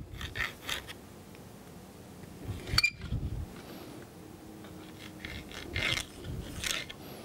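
A marker scratching on the shell of a bowling ball and a plastic Pro Sect layout tool being shifted and rubbed against the ball. A few short scrapes come first, then a sharp click just under three seconds in, then more scrapes near the end.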